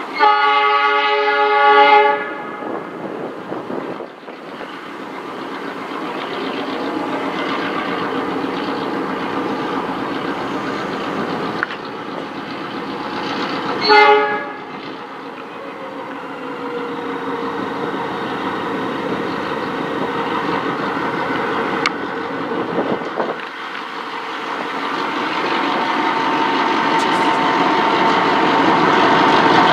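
Four Clyde-built EMD 49 class diesel-electric locomotives hauling a grain train. The lead locomotive's horn sounds a chord of about two seconds at the start and a short toot about halfway through. Meanwhile the engines' running and the rail noise grow steadily louder as the train approaches.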